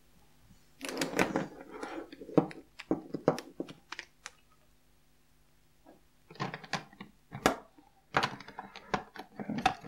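Plastic alcohol marker barrels and caps clicking and knocking together as they are handled, in two bursts of quick clacks with a short pause around the middle.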